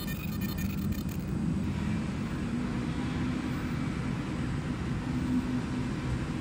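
A 20 W 1064 nm fiber laser marking machine finishing an engraving pass: its high whine of several steady tones and fine ticking stops about a second in. A steady low hum with noise carries on after it.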